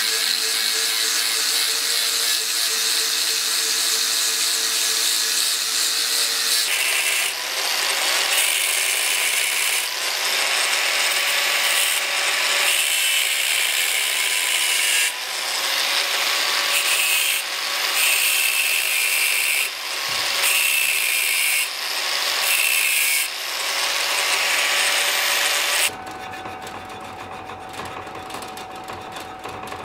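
Electric power tool running and working the metal of a sword pommel in repeated passes a second or two long. Near the end it gives way to a quieter, steady hum.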